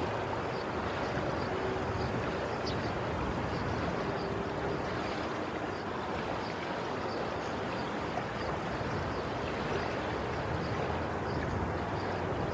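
Sea waves washing on a shore, heard as a steady, unbroken rushing.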